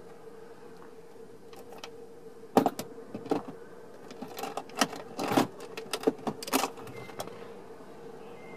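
Sharp clicks and knocks of a metal SYNC 3 APIM module being worked loose and lifted off the back of the screen, the loudest between about two and a half and seven seconds in. A steady faint hum runs underneath.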